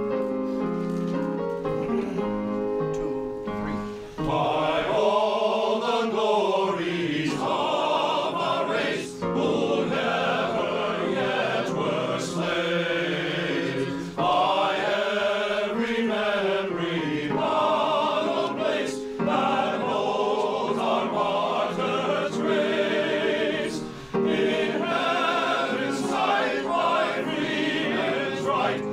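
A men's choir singing an anthem in parts to electronic keyboard accompaniment. The keyboard plays sustained chords alone at first, and the voices come in about four seconds in.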